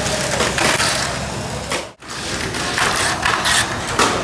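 Tamiya mini 4WD cars running on a plastic race track, making a dense rattling clatter of many quick strokes. The sound breaks off for an instant about halfway through.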